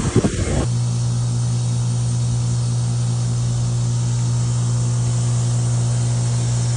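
Steady low mechanical hum with an even hiss over it, like a motor or engine running. It starts abruptly about half a second in, after a brief gust of wind noise on the microphone.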